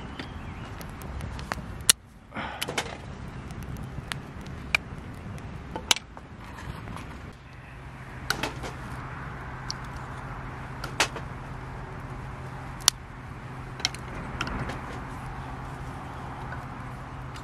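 Wood campfire burning, with sharp, irregular crackles and pops over a soft hiss. A low steady hum joins about seven seconds in.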